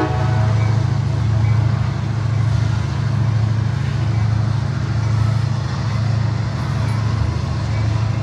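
CSX covered hopper cars rolling slowly past on the rails: a steady low rumble of steel wheels on track with a noisy hiss above it, gently swelling and easing.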